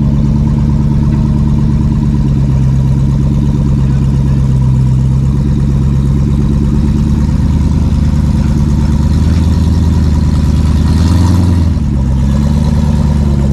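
Rock crawler's engine running at low revs under load as the vehicle climbs slowly over rock, swelling briefly with a short burst of throttle about eleven seconds in, then settling back.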